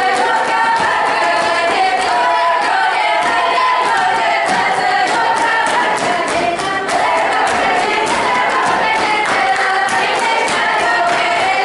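Children's folk ensemble singing a traditional Russian song together in chorus, with sharp taps keeping a steady beat under the voices.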